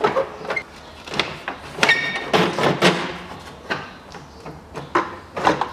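A car radiator being pulled up and out of its mounts: irregular knocks, clunks and scrapes as it is worked free, with a short ringing metallic clink about two seconds in.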